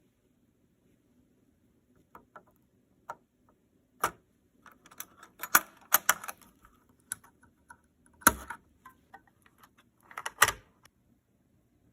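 Small sharp clicks and light metallic clatter from handling a desktop CPU socket's metal load plate and retention lever while a processor is fitted. The clicks come in uneven groups with quiet gaps, the loudest about four seconds in, around six seconds, just past eight seconds and near the end.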